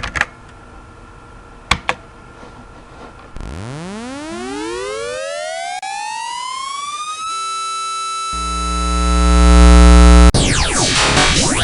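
Cartoon time-machine sound effect: a couple of sharp clicks, then an electronic whine that rises in pitch for about four seconds and holds steady, then a loud low rumble swells and cuts off suddenly. Music with sweeping tones follows.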